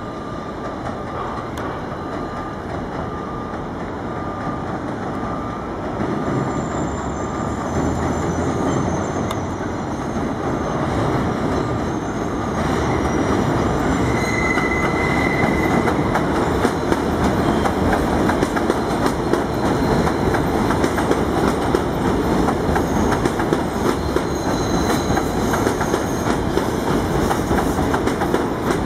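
R160A subway train running along an elevated steel structure, growing louder as it approaches and passes. There is a brief high squeal about halfway through, then rapid clickety-clack of wheels over the rail joints.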